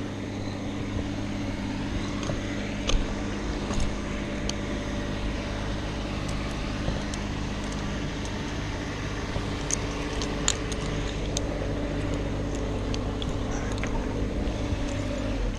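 An engine running steadily at idle, with scattered light clicks and clinks throughout.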